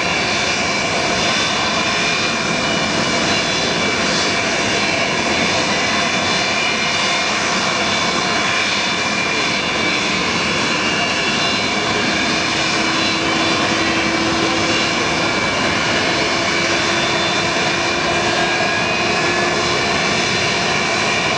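Antonov An-124-100 Ruslan's four D-18T turbofan engines running steadily: a dense jet rush with several high, steady whining tones over it.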